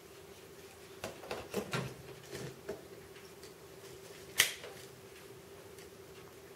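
Plastic Super 8 film reel being handled and pushed onto the projector's reel arm spindle: a run of light plastic clicks and knocks, then one sharp click a little past the middle as it seats.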